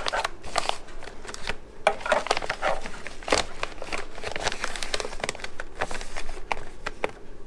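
Plastic vacuum-sealer bag crinkling and rustling as hands smooth it flat in the open chamber of a vacuum sealer, in quick irregular crackles that stop shortly before the end.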